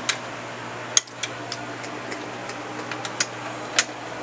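Scattered light clicks and taps, about nine of them at uneven spacing, the sharpest about a second in and two more near the end, over a steady low room hum.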